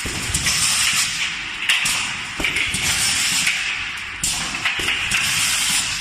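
Automatic aerosol can filling and crimping machine running: pneumatic hissing that swells and fades every second or two, with clicks and knocks from the filling and crimping heads and cans on the conveyor.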